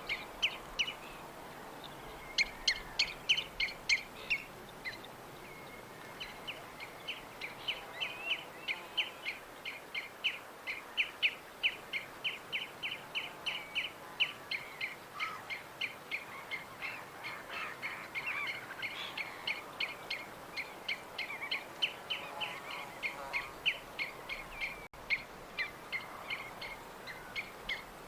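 Birds chirping: a long run of short, sharp chirps repeated several times a second, with a louder flurry of notes a few seconds in.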